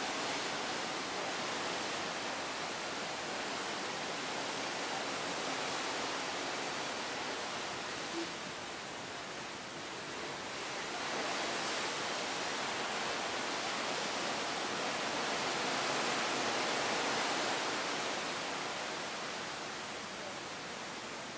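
Steady rushing of wind and the sea washing along the side of a cruise ship under way on the open ocean, swelling and easing slowly.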